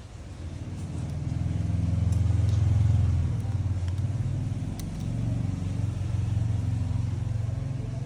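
A motor vehicle engine running close by: a low hum that grows louder over the first three seconds, then holds, rising and falling a little.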